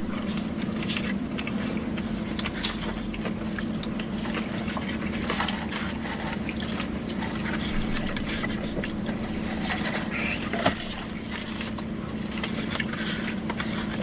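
Eating inside a car: scattered clicks, scrapes and rustles of takeout food containers and plastic utensils, with a sharper tap near the end, over a steady low hum.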